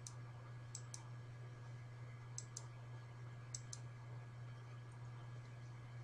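Computer mouse clicked three times, each click a quick double tick of press and release, over a faint steady low hum.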